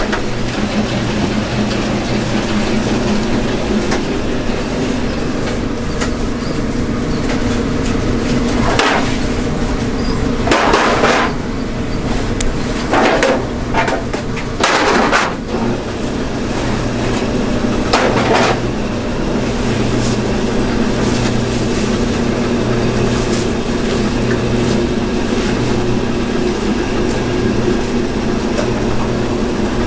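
Steady machine hum with a low drone, broken by about five short bursts of noise in the middle stretch.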